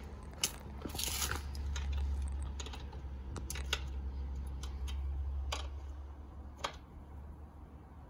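Footsteps crunching on dry leaves, then scattered small clicks of hands and tools at a motorbike's rear axle chain adjuster, over a steady low rumble.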